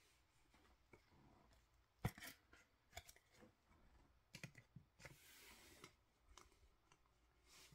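Faint handling of hockey trading cards and their packaging: a few light clicks and taps, with a short rustle about five seconds in.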